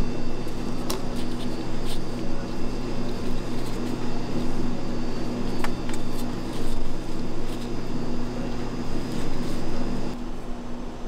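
Steady mechanical hum of kitchen machinery with a few light clicks; the hum changes slightly about ten seconds in.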